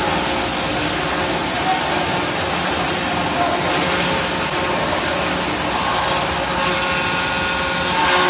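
Scragger-RS2 scragg sawmill running with its two saw spindles spinning, a steady loud machine noise with a few held tones, getting a little louder near the end as the first aspen log is fed to it.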